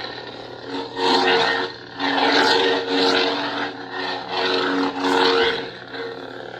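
Proffie lightsaber sound font playing through a 28mm speaker: a steady electric hum that swells three times with whooshing swing sounds as the hilt is moved.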